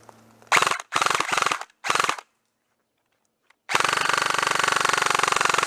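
Airsoft gun firing on full auto: three short bursts in quick succession, then a longer burst of about two seconds, each a fast rattle of shots.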